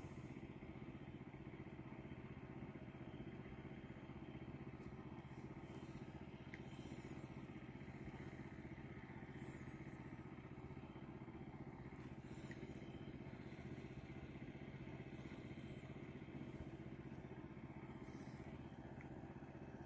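A distant motor running steadily with a low, even hum, of the kind the angler takes for an ATV or a pump drawing water. Short high chirps come about every three seconds.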